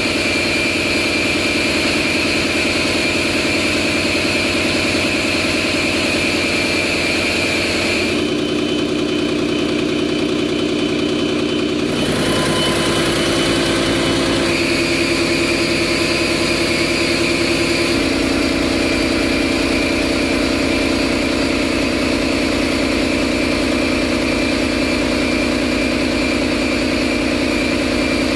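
Large old diesel engines running steadily at idle; the sound changes abruptly several times, as from one engine to another.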